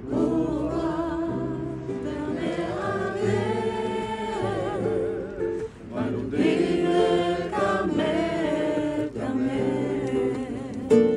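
A group of voices singing a worship song, the sung lines wavering with vibrato over a steady lower accompaniment, with a short break between phrases a little over halfway through.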